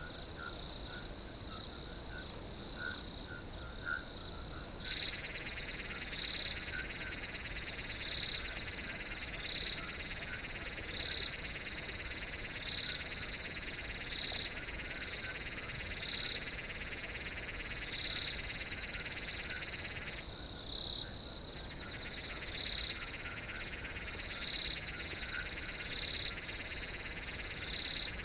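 Chorus of crickets in a field: a steady high trill with louder pulses about once a second. A lower buzzing layer joins about five seconds in and drops out briefly around twenty seconds in.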